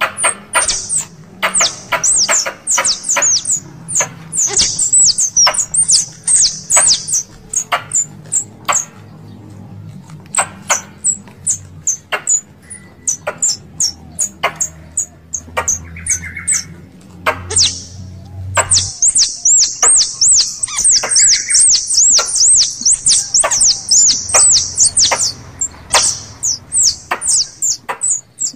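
Recorded squirrel calls used as a hunting lure: sharp, high-pitched chips and clicks in quick succession, easing off about a third of the way in, then a fast, unbroken run of repeated chirps in the last third.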